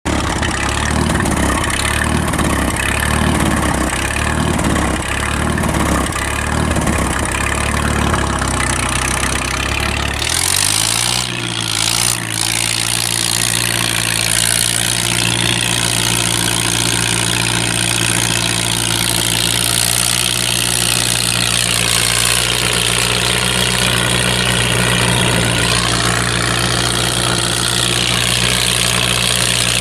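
Straight-piped Farmall H tractor's four-cylinder engine running loud through its open exhaust stack. For the first ten seconds the note pulses unevenly. After a brief change with a couple of sharp clicks about eleven seconds in, it settles into a steady, even note.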